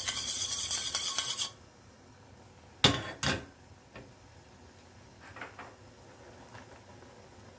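Chopsticks rapidly beating eggs in a stainless steel bowl, a fast rattling clatter that stops about a second and a half in. About three seconds in come two sharp metal knocks as the bowl is set down on the stove, then faint stirring in the noodle pot.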